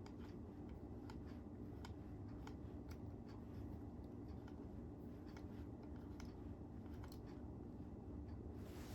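Light, scattered clicks and taps of tripod parts being handled and fitted, over a steady low hum of room noise.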